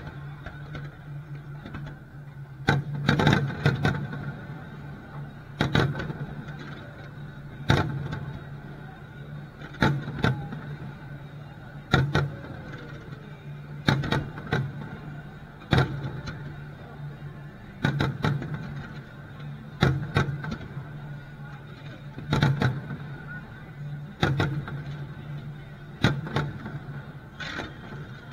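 Aerial firework shells bursting in a display: loud booms roughly every two seconds, some in quick clusters, each with a short crackle and echo. A steady low hum runs underneath.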